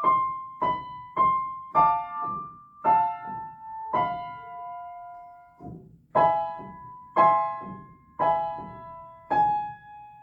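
Piano right hand alone playing a slow legato passage in A minor: single notes and small chords struck roughly once a second, each held so it rings into the next, with one longer held chord midway.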